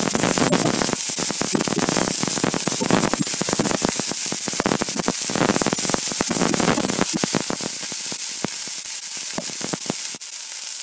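Chopped onions frying in hot oil in a pan, a loud, steady sizzle thick with fine crackles as they are stirred. The sizzle eases about three-quarters of the way through and drops sharply near the end.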